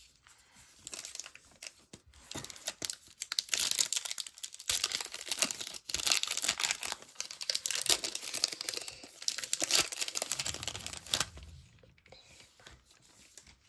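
Baseball card pack wrapper being torn open and crinkled: a dense crackling rustle that builds from about a second in and stops shortly before the end.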